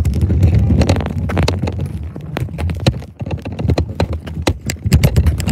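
Kick scooter rolling over pavement: a heavy low rumble with a fast, irregular run of clicks and knocks.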